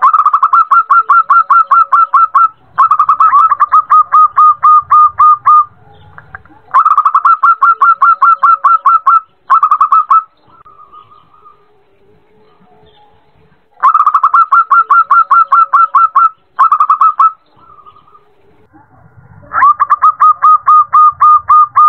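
Female zebra dove (perkutut) calling a male with rapid runs of short staccato coos, about six notes a second, in several bursts of one to three seconds separated by short pauses.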